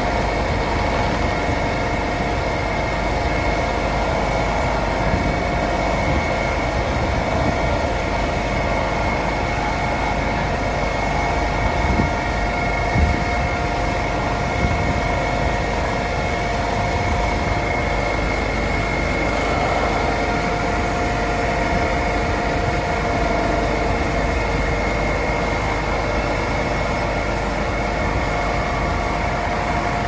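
Ditch Witch RT115 Quad tracked tractor's diesel engine running steadily under load while its plow cuts into the turf and pulls in water pipe, with a steady whine over the engine. A few knocks come between about twelve and fifteen seconds in.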